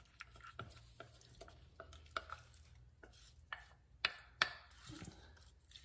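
A utensil scraping and tapping against a glass bowl as guava pulp and peels are tipped out into a pot: scattered light clicks and soft scrapes, the loudest two taps about four seconds in.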